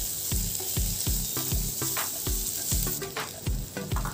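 Sliced onions sizzling as they fry in hot oil, stirred with a wooden spatula while being sautéed until golden. Background music with a steady beat plays over the sizzle.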